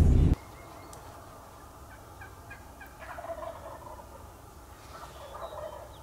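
Wild turkey tom gobbling twice, each gobble a quick falling rattle, about two seconds apart. Just before, a short stretch of truck-cab rumble cuts off abruptly at the start.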